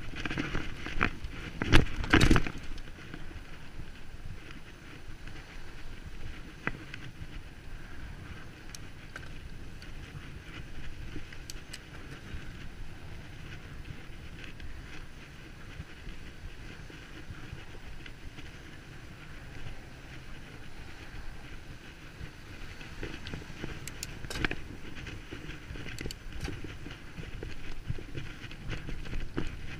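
Bicycle being ridden over rough ground: a steady rumble and rattle, with a loud clattering knock about two seconds in and a few smaller knocks again near the end.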